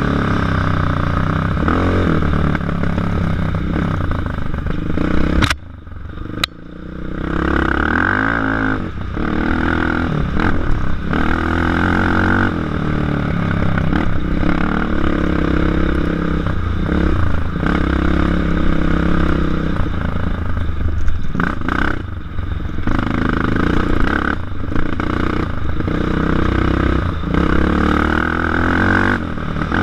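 Racing ATV's engine heard from on board, revving up and down hard as the quad is ridden along a rough dirt trail. About five and a half seconds in, the throttle is chopped and the engine note drops away briefly, then revs back up.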